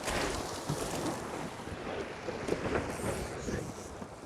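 Rushing wind on the microphone and water rushing past the hulls of a Tornado catamaran sailing fast in strong wind, through a jibe.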